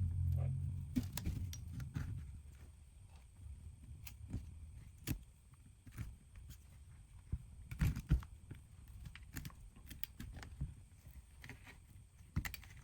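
Scattered small clicks and taps of repair tools working on an iPhone 13 as its display is separated and lifted, with the loudest knocks about eight seconds in. A low hum fades out in the first second or two.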